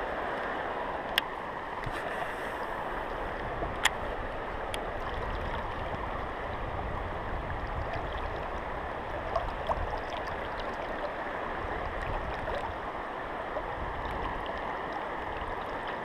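Fast current of a rain-swollen river rushing steadily, with a few sharp clicks about one, four and five seconds in.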